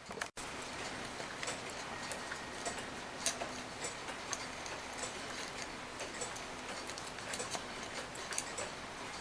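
Mechanical clock ticking softly over a faint steady hum.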